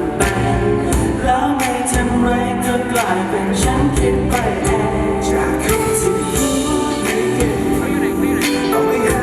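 Pop music with singing over a steady beat, played over a stage sound system during a sound check.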